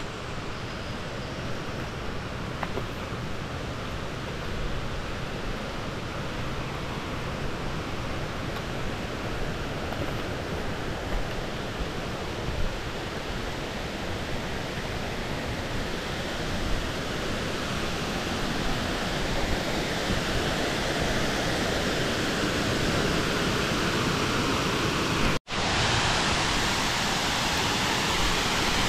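Steady rushing noise that grows gradually louder, with a split-second break about 25 seconds in, after which it comes back slightly louder.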